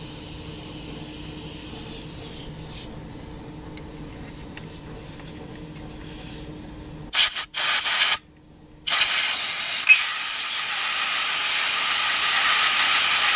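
Aerosol carburetor cleaner spraying into the small jets of an outboard carburetor to clear them of gum: two short bursts about seven seconds in, then one long spray of about five seconds. Before the spraying, a low steady hum.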